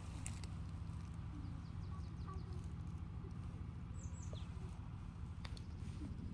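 Quiet rural outdoor ambience with a steady low rumble, and a small bird giving a brief high chirp about four seconds in.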